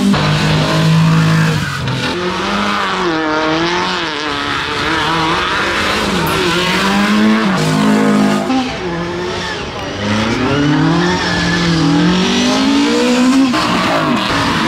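Rally cars and a sports car driving past one after another on a demonstration track, their engines revving up and dropping back through gear changes, the pitch rising and falling repeatedly.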